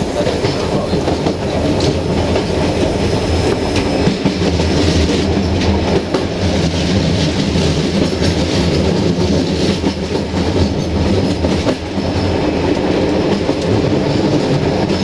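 Passenger train running along the track, heard from on board: a steady rumble of wheels on rail with a low hum, and now and then a sharp clack as the wheels cross rail joints.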